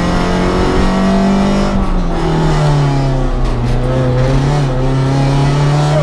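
Small rally car's engine heard from inside the cabin under hard running, over loud road and tyre noise. The engine note holds high, then drops in two steps, about two and three seconds in, and stays lower and steady.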